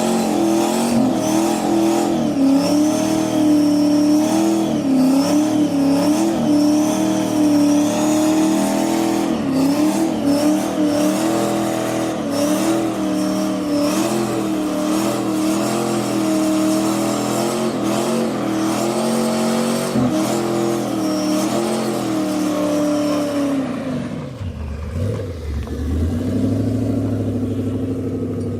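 Turbocharged Toyota 1UZ V8 held at high revs, its pitch wavering up and down. About 24 seconds in the revs drop sharply and the engine runs on at a lower speed.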